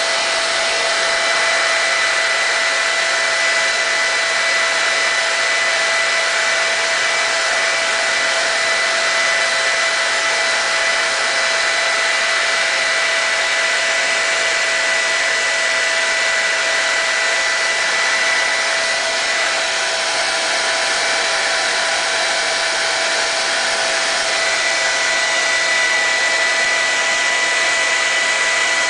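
Hair dryer running steadily: an even rush of blowing air with a thin steady whine in it, heating a motorcycle's vinyl sticker to loosen it for peeling.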